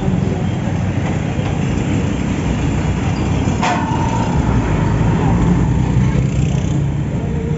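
Road traffic passing close by on a busy city street, with a bus going past, its engine and tyres a steady low noise that swells a little after the middle. About halfway through there is one sharp click followed by a brief steady tone.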